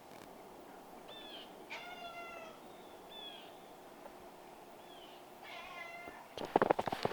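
An animal calling several times, short mewing calls that bend in pitch. About six seconds in, they give way to a louder run of footsteps.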